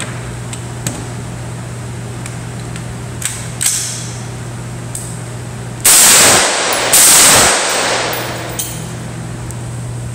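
Two loud rifle shots about a second apart, about six seconds in, close enough to overload the recording, each ringing out afterwards. A few fainter, sharper shots come earlier.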